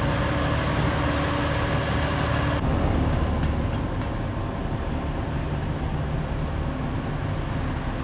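Heavy diesel truck engine running steadily with a low hum, easing off slightly after about four seconds.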